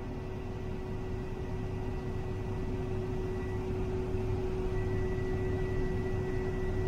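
Desna-Polesye GS12 combine harvester's engine and grain unloading auger running steadily at moderate revs, heard inside the cab: a constant low hum with a steady whine over it.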